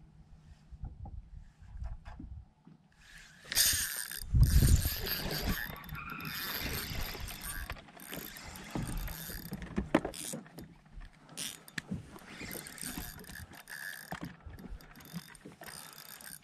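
Fishing reel being cranked with a mechanical clicking, mixed with rubbing and knocking noise on the camera, and a heavy thump about four seconds in.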